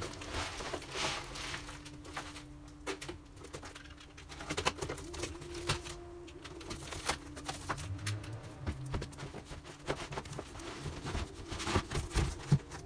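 Large cardboard shipping box being opened and unpacked: cardboard scraping and rustling with many short clicks and knocks, the loudest near the end as a hard plastic equipment case is lifted out of the box.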